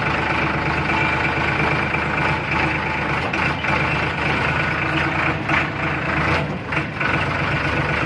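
An engine running steadily, with a low hum and a hiss over it.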